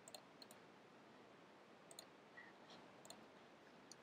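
Faint, scattered clicks of a computer mouse and keyboard, about seven or eight single clicks spread unevenly, over near-silent room tone.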